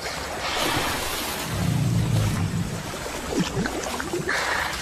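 Water splashing and churning as Nile crocodiles jostle in shallow river water, with a low rumble about a second and a half in.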